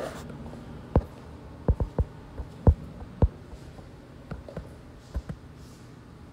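Irregular footsteps and knocks on a hard floor, a few sharp ones in the first half and fainter ones after.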